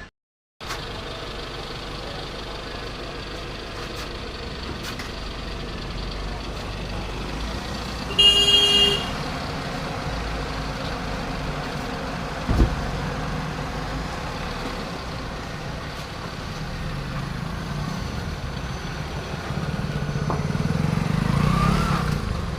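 Street traffic noise with a vehicle horn sounding once, briefly, about eight seconds in. A single sharp knock follows a few seconds later, and a vehicle's engine rumble swells near the end.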